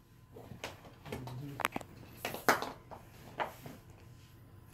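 Plastic Easter eggs being handled and twisted open: a string of light clicks, taps and rustles.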